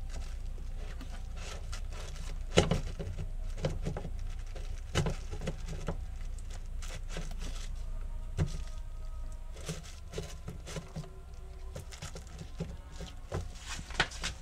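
Irregular clicks, taps and knocks of plastic fuel pump and level sender parts being handled by gloved hands inside a BMW E36 fuel tank opening, with a steady low hum underneath. The sharpest knock comes about two and a half seconds in.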